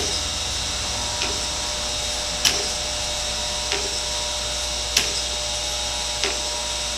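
Chevalier 2A618 hydraulic surface grinder running through a spark-out pass on steel: a steady hum from the spindle and hydraulics. Sharp clicks come about every second and a quarter, every other one louder, as the hydraulic table reverses and the cross feed steps over.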